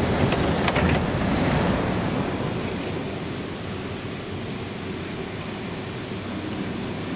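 Metro train standing at the platform with its doors open. A few sharp clacks from the sliding doors come in the first second, over a steady hum from the train that eases a little over the next two seconds.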